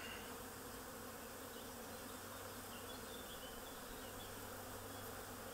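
Honey bees buzzing in a low, steady hum around an opened hive and its lifted brood frame.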